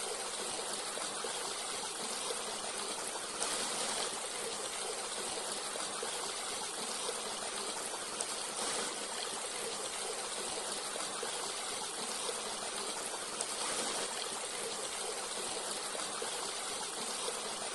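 Forest stream flowing: a steady rush of running water with a light trickle.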